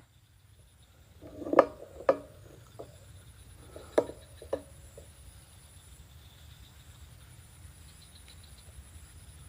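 Insects trilling steadily and faintly in the background, with a few short knocks and rustles about one and a half to two seconds in and again around four seconds in.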